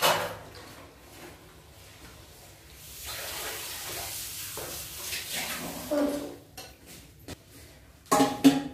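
A metal slotted spoon knocks against an iron kadai. About three seconds in, hot oil sizzles steadily for a few seconds as a puri is fried and lifted out. A few light clinks of the spoon on the pan follow.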